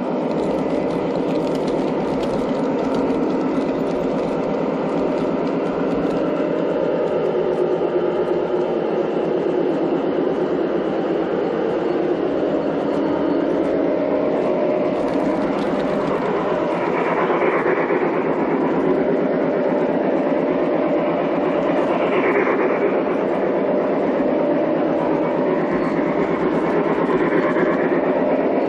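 G-scale model Santa Fe Super Chief diesel locomotive running on its track, heard from a car riding along the train: a steady rolling noise of the train in motion, with a few brief higher-pitched swells in the second half.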